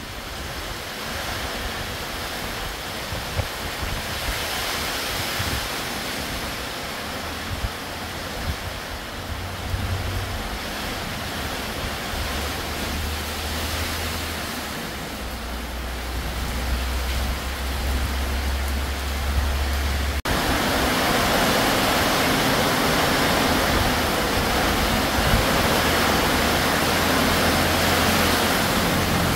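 Heavy tropical downpour with gusting wind, a steady rushing hiss of rain. It gets suddenly louder about two-thirds of the way through.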